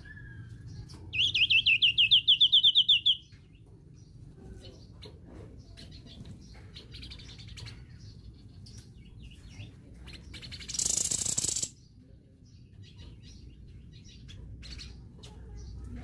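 A caged songbird gives a loud, fast trill of about twenty quick repeated notes lasting two seconds. Later comes a short harsh rushing burst, with faint ticks and chips in between as it moves about the perch.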